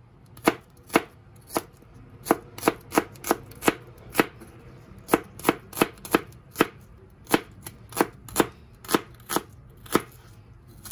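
Large kitchen knife chopping small red onions on a plastic cutting board: sharp knocks of the blade striking the board, about two a second, with a brief pause just before the middle.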